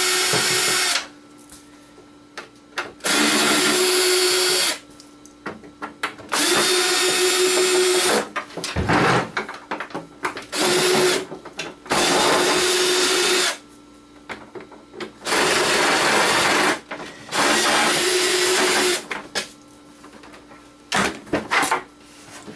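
Cordless drill-driver running in repeated bursts of about one and a half to two seconds, about six times, as it backs screws out of a plastic cover. Small clicks and rattles of handling come between the bursts.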